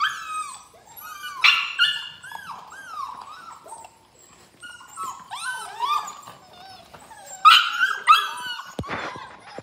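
Black Labrador retriever puppies whining and yipping, many short high-pitched calls that overlap one another, loudest about a second and a half in and again near the end. A couple of sharp knocks come near the end.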